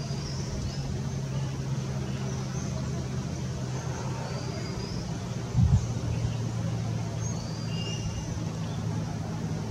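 A steady low engine hum runs throughout, with short, high, rising bird chirps now and then and a single dull thump about five and a half seconds in.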